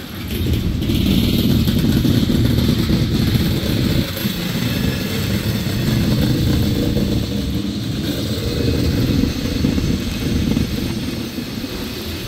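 Freight train's tank cars rolling past, a steady rumble and clatter of steel wheels on the rails.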